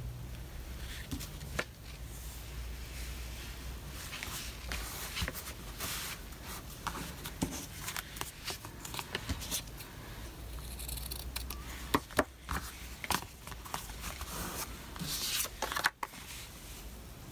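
Paper and fabric being handled and stuck down at a craft desk: rustling, scraping and small clicks, with a few sharper taps near the end.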